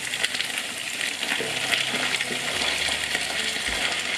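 Potato chips (fries) frying in hot oil: a steady sizzling hiss with a fine spatter of crackles.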